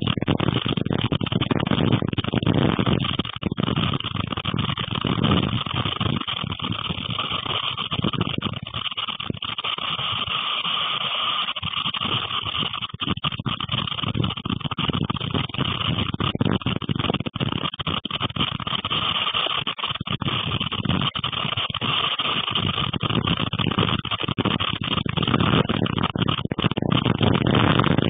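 Storm wind and wind-driven rain beating on a window, heard from inside: a dense, steady rush with many small sharp taps. It eases a little in the middle and builds again near the end.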